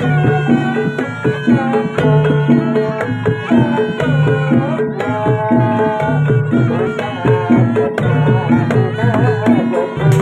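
Javanese jaranan ensemble music: a steady run of hand-drum strokes over a repeating pattern of pitched percussion, with a melody line that slides up and down in pitch.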